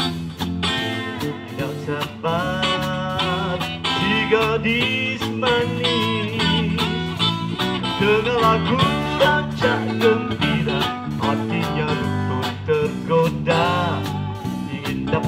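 Live electric band playing an upbeat twist-rhythm song: electric guitar, electric bass and drum kit, with a melody line that bends and wavers over a steady drum beat.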